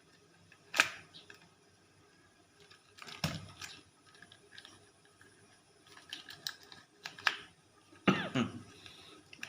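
Plastic parts of a transforming toy robot clicking and snapping as they are twisted and folded by hand, in a few separate sharp clicks and short clattery bursts.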